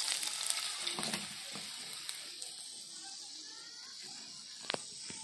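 Garlic cloves sizzling in hot oil in a steel kadhai for the tempering. The sizzle is loudest at first and dies down over the first few seconds. There is a light click about a second in and a sharper one near the end.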